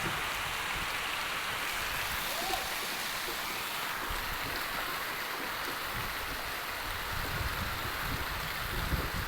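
Steady rain falling, an even hiss, with occasional low rumbling underneath.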